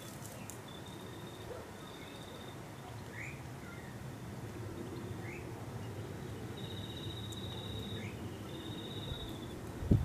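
Outdoor ambience of birds and insects calling: short, high, buzzing trills every second or two and a few brief rising chirps over a steady low rumble. A louder low rumble starts near the end.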